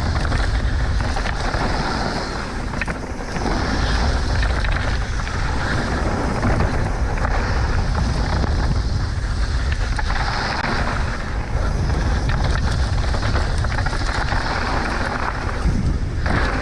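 Mountain bike ridden fast down a dirt trail: wind buffeting the camera microphone over the rolling rumble and rattle of the tyres and bike.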